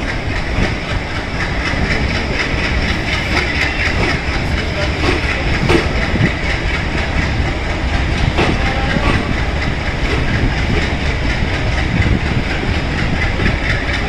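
Passenger train running along the track: a steady rumble and rushing noise with the clickety-clack of wheels over rail joints, and a couple of sharper clacks midway.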